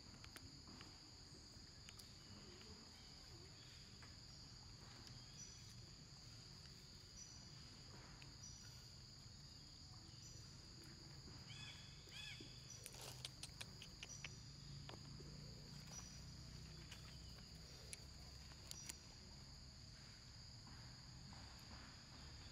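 Faint insects in the forest: a steady high-pitched drone, with a short chirp repeating every second or so. A few faint clicks and short chirpy calls come in about halfway through.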